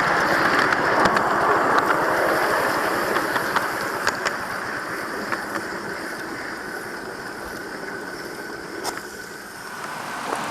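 Miniature ride-on railway locomotive and its riding car running along the track, the running noise growing steadily quieter, with a few sharp clicks along the way.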